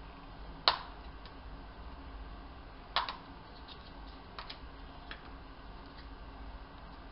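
Plastic snap-fit housing of a Homematic HM-LC-Bl1PBU-FM flush-mount roller-shutter actuator being pried apart with a screwdriver: two sharp clicks, under a second in and about three seconds in, as the clips let go, with lighter plastic ticks following until about six seconds.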